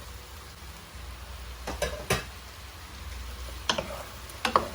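Pork and hot dogs frying in oil with a steady sizzle, and a cooking utensil knocking against the pan about four times as they are stirred, twice around two seconds in and twice near the end.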